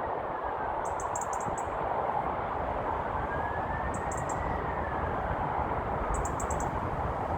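Steady low rushing outdoor noise, with three short bursts of rapid high-pitched bird chirps, four or five quick notes each, about a second, four seconds and six seconds in.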